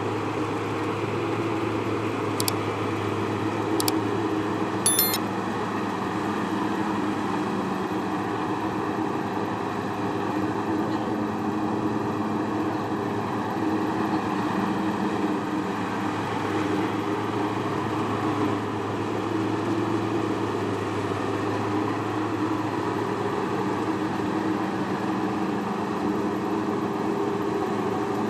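Engine of a piece of farm machinery, such as a tractor or combine harvester, running steadily at a constant speed, with a few short sharp clicks about two, four and five seconds in.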